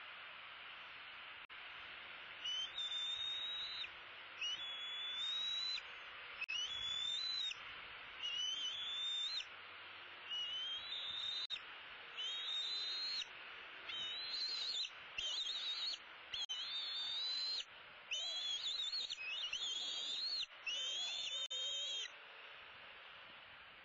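A juvenile bald eagle gives about a dozen high, drawn-out whining calls, each lasting about a second and sliding up at the start. The calls come closer together toward the end, over a steady background hiss.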